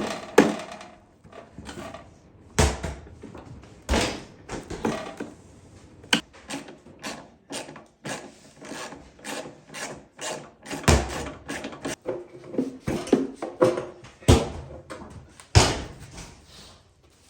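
Hand tools and metal parts clanking and knocking as a go-kart is taken apart: a long run of irregular sharp hits and rattles, with a few louder knocks scattered through.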